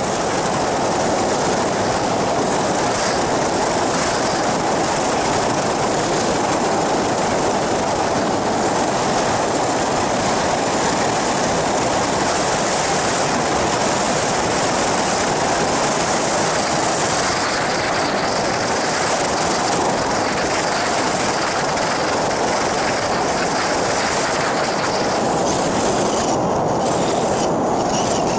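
Steady rushing noise of wind and a propeller engine from an ultralight flying boat with an inflatable hull, in flight low over the sea. Wind on the microphone.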